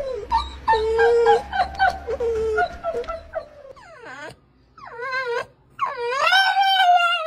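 Dogs whining: repeated short whimpering whines, a few falling yelps about four seconds in, then a French bulldog giving long, wavering howling whines near the end.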